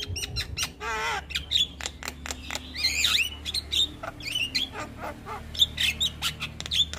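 Javan myna singing a rapid, varied run of clicks, chirps, whistles and harsh squawks, with a warbling note that slides downward about a second in.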